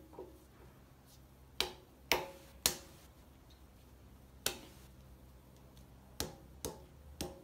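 Harmonic balancer being pushed and rocked by hand onto the crankshaft nose of a Jeep 4.0 straight-six, giving about seven sharp clicks and knocks at uneven intervals as it works over the key.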